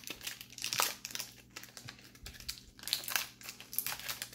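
Foil wrapper of a 1990s trading-card pack crinkling and tearing as it is peeled open by hand, in irregular crackles.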